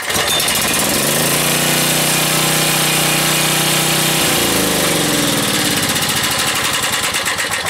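A portable generator's small engine, running on natural gas, catches on a recoil-starter pull and runs steadily. About four seconds in its pitch falls as it slows, and near the end it fires unevenly.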